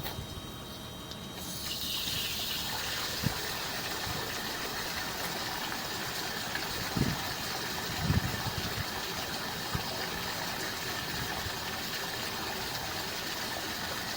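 Water running steadily, starting about a second and a half in, with a few short low thumps over it.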